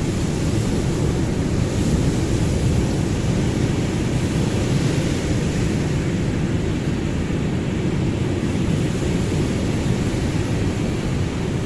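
Ocean surf: a steady, unbroken wash of waves, mostly a deep rumble with a lighter hiss above it.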